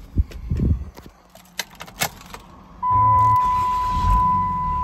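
Keys jangling and clicking in the truck's ignition as the key is turned to on. About three seconds in, with the ignition on and the engine not running, a steady high electronic warning tone starts together with a steady rush.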